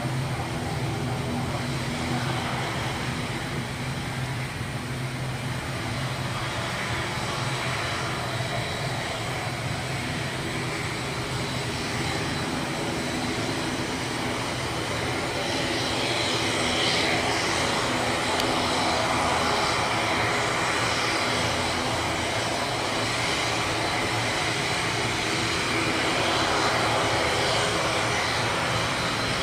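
ATR 72-500 turboprop engines running at idle with propellers turning while the airliner is pushed back by a tug. A steady whining drone that grows louder and higher-pitched about halfway through.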